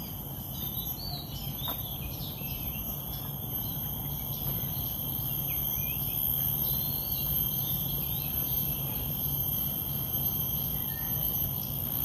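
Garden ambience: insects trilling in a steady high-pitched drone of several held tones, with many short bird chirps and calls scattered through it, over a low steady background hum.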